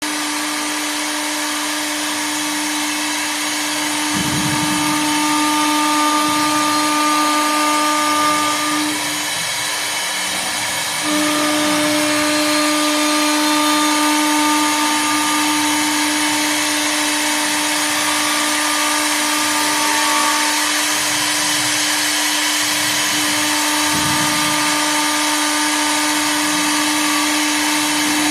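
CNC wood lathe turning a wooden leg: its 3.5 kW air-cooled spindle runs with a steady whine over a constant hiss of the cutter working through the spinning wood. The whine breaks off for about two seconds a third of the way in, then carries on.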